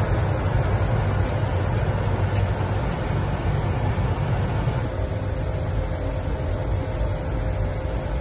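Steady flight-deck noise of an Airbus A220 on approach: a low rumble of airflow and engines, with a faint steady hum above it.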